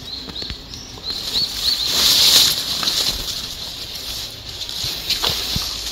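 Rustling of leaves and undergrowth with scattered light crackles and steps on pine-needle litter, swelling to a loud hiss about two seconds in. A high, repeated chirping call runs in the background early on, about three or four chirps a second.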